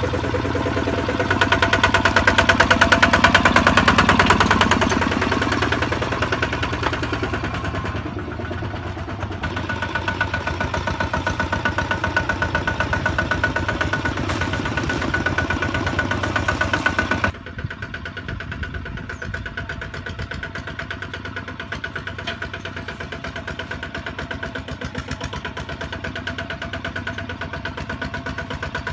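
Kubota two-wheel walking tractor's single-cylinder diesel engine chugging under load while hauling a loaded trailer, with a fast, even beat of firing strokes. It grows louder a couple of seconds in, then drops suddenly to a quieter, duller level about two-thirds of the way through.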